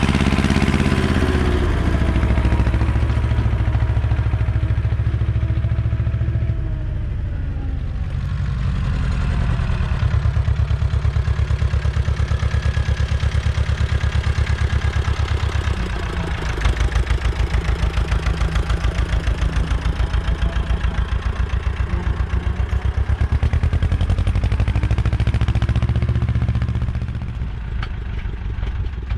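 Ursus C-330 tractor's two-cylinder diesel engine running under load while pulling field implements, with a fast, even firing beat. Its pitch and loudness shift several times along the way.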